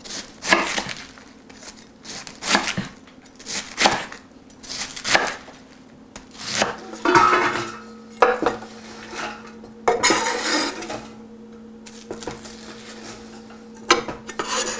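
Chef's knife chopping cabbage on a wooden cutting board, a run of sharp chops through the first six seconds. Then shredded cabbage is slid and scraped off the board with the knife into a stainless steel pot, with rustling, scraping and knocks on the board and pot, over a faint steady hum.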